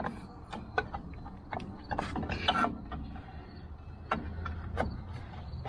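Metal clicks and scrapes from rear drum brake shoes and their hardware being handled and fitted, with a longer scrape about two seconds in.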